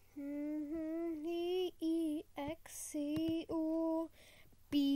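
A single high voice singing a wordless tune in long, steady held notes, in four phrases with short breaks, with a couple of faint clicks around the middle.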